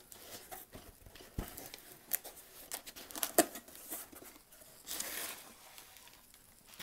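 Cardboard box flaps being pulled open and plastic bubble-wrap packing being handled: scattered scrapes, rustles and crinkling, with a sharp knock about three and a half seconds in and a longer rustle around five seconds.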